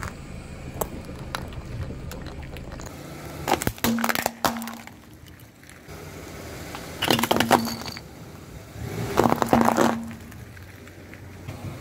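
Car tyre rolling over and crushing objects on asphalt: a low rumble from the car, then three separate bursts of crunching and cracking a few seconds apart as the things under the wheel break.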